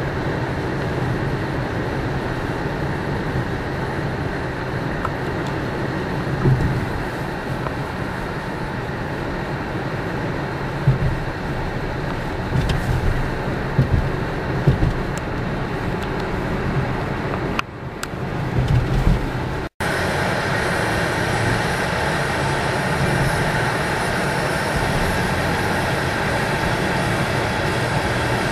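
Steady engine and tyre noise heard inside a 2010 Chevy Cobalt's cabin while driving on a snow-covered highway, with a few light bumps. The sound cuts out for an instant about two-thirds of the way through and comes back with more hiss.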